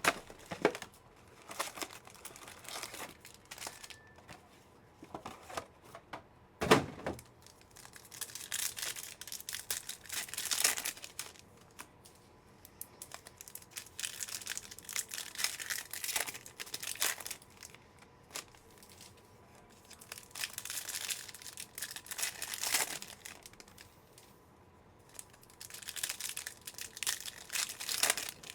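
Trading-card packaging being torn open and crinkled by hand: irregular bursts of tearing and rustling wrapper, with a sharper tear about seven seconds in.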